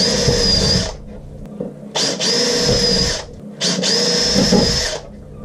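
Cordless drill with a small counterbore bit drilling screw holes in a window frame, run in three short bursts of about a second each with a steady whine.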